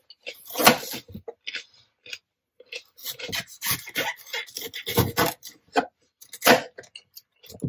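A kitchen knife cutting through a yellow bell pepper on a plastic cutting board, making a series of short, irregular crisp cuts and scrapes, with a pause partway through.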